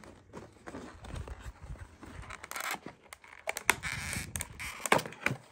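Cardboard scraping and rubbing as a boxed set of trading-card packs is worked out of its outer cardboard box, with a longer sliding scrape about four seconds in and a few sharp knocks near the end.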